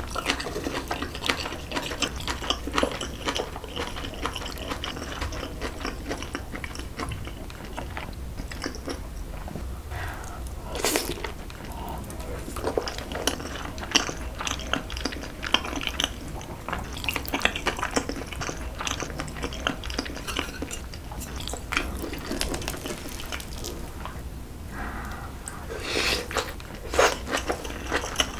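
Close-miked chewing and mouth sounds of someone eating a meal, with many short clicks throughout and a few louder, sharper ones about eleven seconds in and again near the end.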